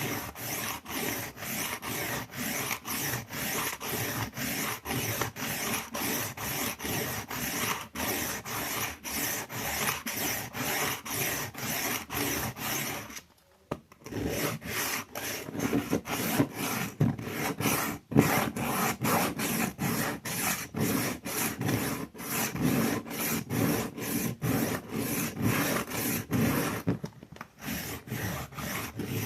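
Steel kitchen knife blade being stroked back and forth across a diamond sharpening stone: a steady run of quick, even scraping strokes, a few per second, with a pause of about a second roughly halfway through.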